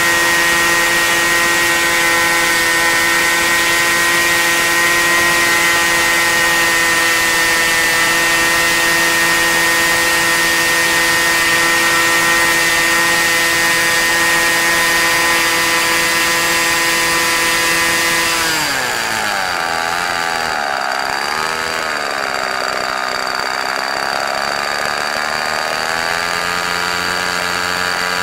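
Model-aircraft two-stroke glow engine of .40 to .46 size, turning an 11x6 propeller on a test stand at a steady high pitch near 10,300 RPM, its peak on this prop. About two-thirds of the way through it is throttled back: the pitch drops sharply, wavers for a few seconds and settles at a lower idle.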